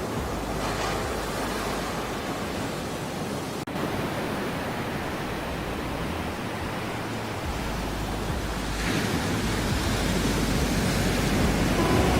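Ocean surf: a continuous wash of waves, with a brief dropout about three and a half seconds in. A wave breaks and the surge grows louder from about nine seconds in.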